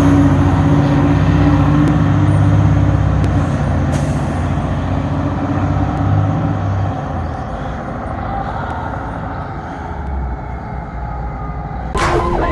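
Heavy fire truck's Detroit Diesel 8V71 two-stroke V8 running with a deep, steady rumble that slowly fades. A siren starts abruptly just at the end.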